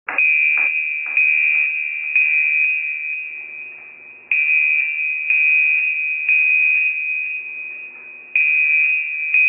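A high electronic alarm-like tone that starts suddenly and re-sounds about once a second, fading a little between beats and swelling again roughly every four seconds.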